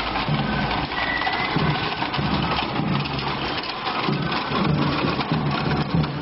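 A small wheeled cannon on a spoked wooden cart rolling over stone paving, with an uneven rumble that rises and falls.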